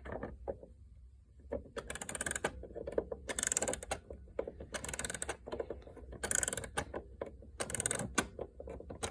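Antique gingerbread mantel clock being wound with its key: a short burst of ratchet clicks with each turn, repeated about every second and a half.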